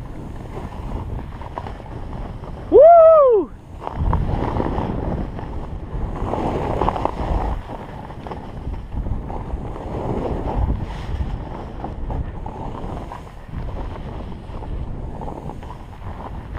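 Wind rushing over an action camera's microphone and snow hissing under a rider descending a snow slope. About three seconds in, a short loud yell rises and falls in pitch.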